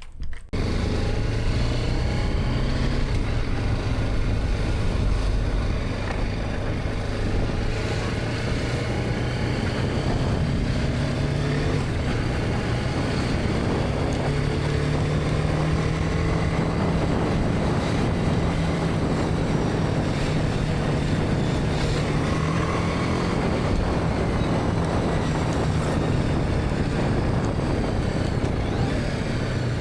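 BMW G310R's single-cylinder engine running steadily under way, its note stepping up in pitch about halfway through and settling back lower near the end.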